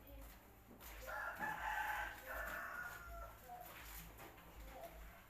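A rooster crowing once, a drawn-out call starting about a second in and lasting roughly two seconds.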